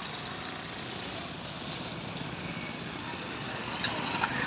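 Steady outdoor ambient noise of road traffic, with a few faint high chirps and a couple of clicks near the end.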